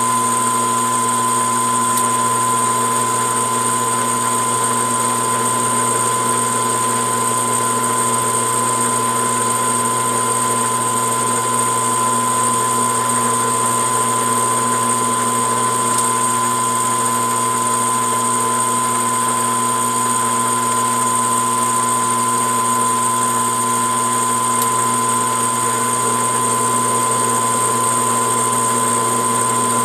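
Metal lathe running steadily under a single-point threading cut on a steel rifle barrel: an even hum and whine from its motor and gearing, with no change in pitch or level.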